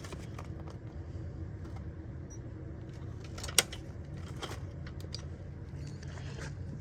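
Air handler giving a steady low hum, with one sharp click about three and a half seconds in, as the unit with its newly installed heat sequencer is switched back on.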